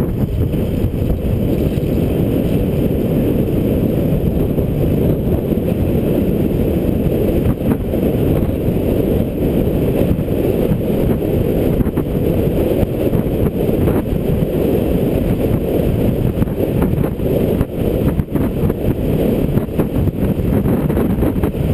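Wind buffeting a bike-mounted GoPro microphone while coasting fast downhill on a Brompton folding bike: a loud, steady, low rumble with a few faint ticks from the road.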